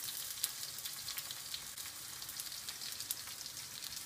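Two whole sole frying in butter and olive oil in a frying pan: a steady sizzle with a fine, irregular crackle of spitting fat.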